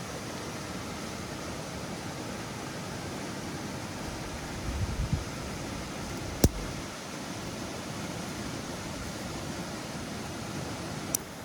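Steady, even rushing background noise, with a few dull knocks about five seconds in, a sharp click about six seconds in and another near the end.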